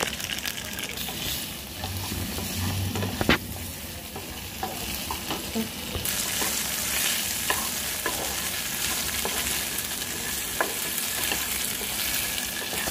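Smoked tofu cubes sizzling in hot oil in a nonstick frying pan while being stirred with a spatula, with scraping and small knocks of the spatula against the pan and one sharp knock about three seconds in. The sizzle grows louder about halfway through.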